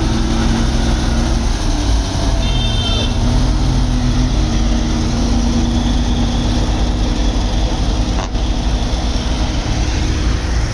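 Diesel engine of a loaded six-wheel dump truck running steadily as the truck passes, a continuous low drone. A brief high-pitched tone sounds about two and a half seconds in, and a single sharp click comes about eight seconds in.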